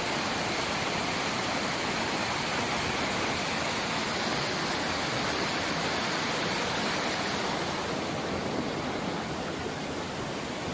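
Fast-flowing floodwater rushing in a steady, dense wash of noise, easing slightly near the end.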